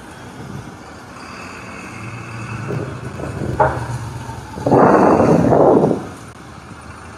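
Motor traffic passing close on the street: an engine grows louder for a couple of seconds, then is loud for about a second past the middle as the vehicle goes by, and falls back to the steady street noise.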